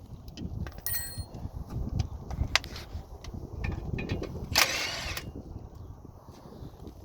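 Hand-tool work on a car: scattered clicks and knocks of tools and parts being handled, with a short squeak about a second in and a brief hissing burst a little past halfway.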